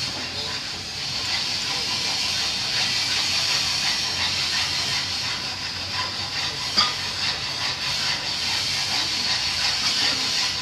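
Steady hiss of argon gas flowing from a back-purge device into a taped-up pipe joint, purging the air out before TIG welding. One short sharp click about two-thirds of the way through.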